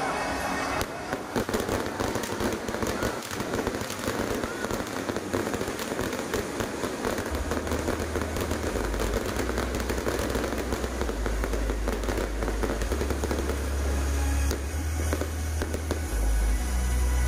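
Aerial fireworks going off in a dense, continuous crackle of rapid pops from many rising comets and crackling shells. From about halfway in, deep bass notes from music sound underneath.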